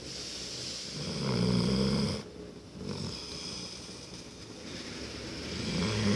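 Snoring in slow breaths: a deep, loud snore about a second in, quieter breathing after it, and the next loud snore starting near the end.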